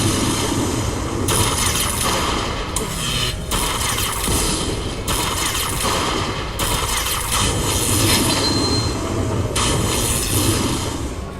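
Lightning Link slot machine bonus sound effects: a loud, dense crackling and rattling din that shifts every second or two, at the close of the bonus feature's final spin.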